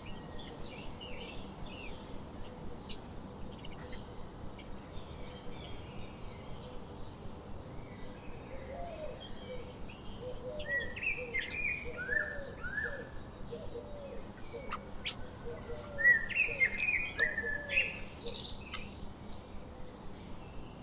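Small birds chirping and calling at a feeder, with two louder runs of quick falling notes, one about a third of the way in and one near three quarters, and a lower repeated call beneath them through the middle.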